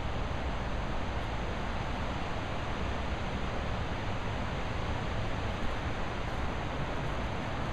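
Steady rushing background noise with a low rumble underneath, with no distinct calls, clucks or knocks.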